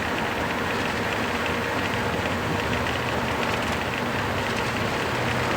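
Boeing 737-800's CFM56-7B turbofan engines at takeoff thrust, with the rumble of the accelerating takeoff roll, heard inside the cockpit as a steady, even noise with a faint steady hum.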